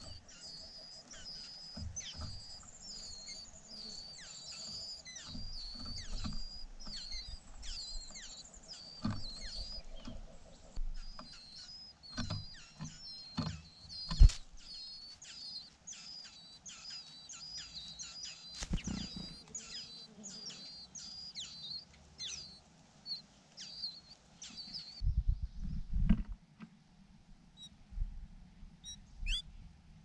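Babbler nestlings begging: a rapid, near-continuous run of thin, high wavering chirps, with scattered rustles and sharp knocks. About 25 seconds in the chirping stops, leaving low rumbles and a few faint clicks.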